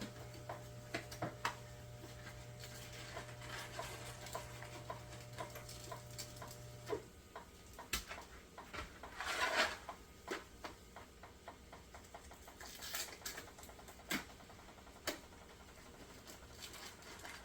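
Boxed three-cheese shell pasta being opened by hand: scattered clicks, crinkling and a short tearing rustle about nine seconds in. A steady low hum runs under it for the first seven seconds or so, then stops.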